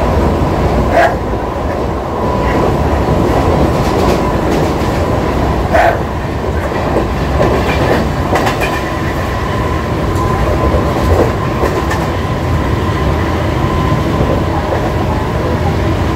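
Mumbai suburban EMU local train running, heard from inside the coach at an open window: a steady rumble of wheels on rail with a faint steady whine and a few sharp clicks, the clearest about one second and six seconds in.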